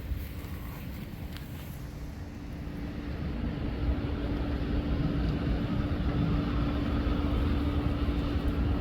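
A motor engine running with a steady hum and a low rumble, growing louder about three seconds in.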